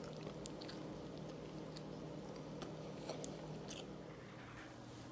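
A person chewing and biting into a grilled cheese sandwich with jalapeños, close up, with a few crisp crunches in the first four seconds. A low steady hum runs underneath.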